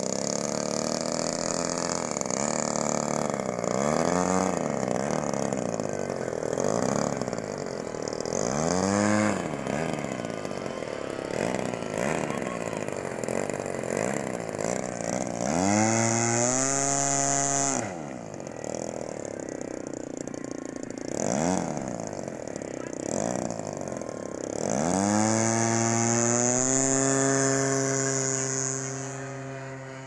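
Small engine of a radio-controlled model airplane. During the first ten seconds the pitch swells and falls away again several times as a model flies past. A model on the ground is then run up to full throttle twice, each time climbing quickly to a high, steady pitch held for a few seconds before it drops back.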